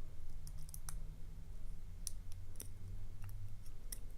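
Faint, irregular metal clicks of a dimple pick probing the bottom pins of a Chinese dimple lock held under tension, over a low steady hum.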